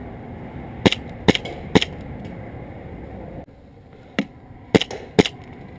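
Airsoft gun fired semi-automatically: three sharp snaps about half a second apart, a pause of about two seconds, then three more.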